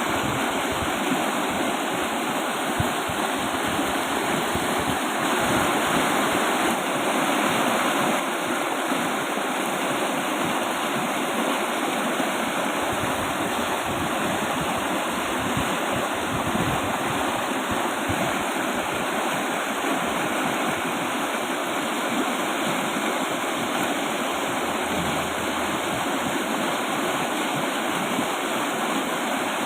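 River in strong flow: a steady rush of fast water, briefly a little louder about five seconds in.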